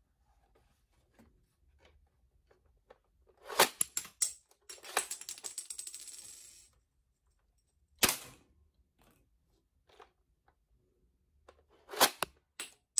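Hard plastic clicks and clacks from the BQZ toy soft-bullet rifle's mechanism as it is handled and worked: loud clacks a few seconds in, then a rapid rattle lasting about two seconds, a single sharp clack, and two more loud clacks near the end.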